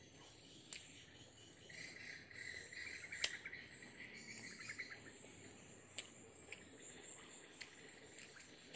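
Insects trilling in a steady, fast-pulsing chorus, loudest for a few seconds in the middle, with a few sharp clicks, the loudest a little over three seconds in.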